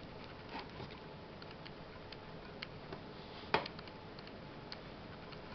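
Faint crackle and rustle of fingers pulling apart sphagnum moss in a plastic tub to free rooted baby African violet plantlets, with scattered small clicks and one sharper click a little past halfway.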